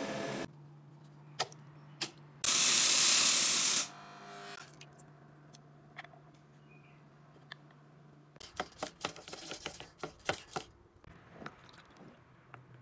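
Workshop sounds: a machine's steady running cuts off half a second in. About two and a half seconds in comes a loud hiss lasting just over a second. Later there is a run of sharp clicks and small rattles.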